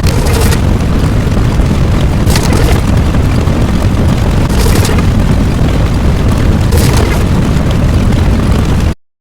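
Loud, continuous deep rumbling boom, like a sustained explosion sound effect, with a crackling burst about every two seconds. It cuts off suddenly near the end.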